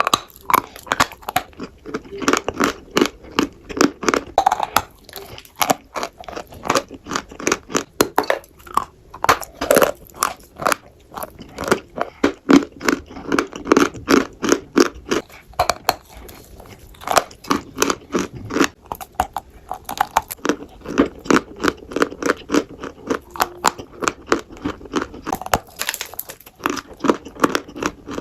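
Close-up chewing of crunchy food: rapid, sharp crunches several times a second, in runs broken by short lulls.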